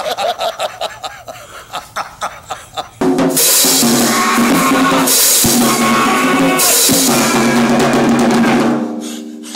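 Two men laughing, then a drum kit played hard from about three seconds in, with crashing cymbals over a held low note. The playing fades out near the end.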